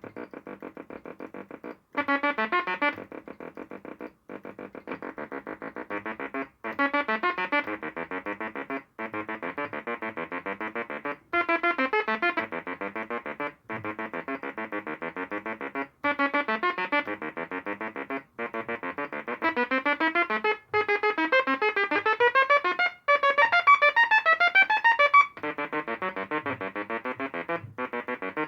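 Homemade step-sequencer synthesizer playing a rapid repeating pattern of short, buzzy pitched notes rich in overtones. The pattern changes every two seconds or so, with a brief break between patterns, and turns into rising and falling runs of notes about three quarters of the way through.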